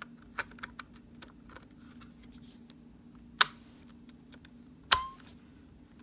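Small plastic and metal clicks and taps of hands working in a laptop's open RAM bay, with two sharp louder clicks about three and a half and five seconds in, the second with a brief metallic ring, over a steady low hum.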